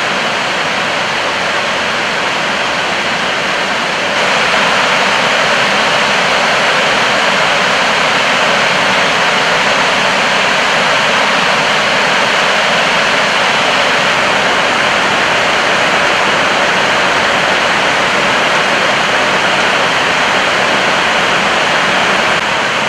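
Steady rushing noise on the flight deck of an Airbus A320 in an idle-thrust descent at about 290 knots. This is airflow over the nose and windscreen together with the cabin ventilation, with the engines at idle. It gets slightly louder about four seconds in.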